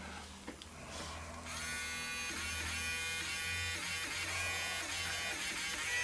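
Small battery-powered electric eraser motor whirring steadily from about a second and a half in, used to lift graphite from a drawing.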